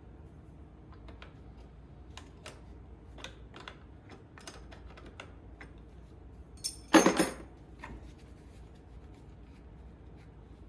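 Hand tools and metal parts being handled while a mower battery's terminal cables are disconnected: scattered light clicks and taps, with one louder clatter about seven seconds in.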